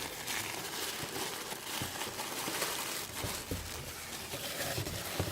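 Packaging rustling and crinkling as a mail-order shipping box is opened and its contents handled, with a few light knocks.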